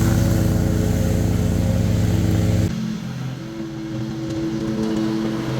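Lawn mower engine running steadily. About halfway through the deep part of the sound cuts out suddenly and it gets quieter, then slowly builds back up.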